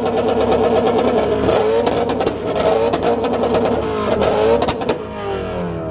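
A tuned car's engine held on its two-step launch-control rev limiter, crackling with a rapid string of sharp pops and bangs at a steady high rev. About five seconds in, the revs drop away.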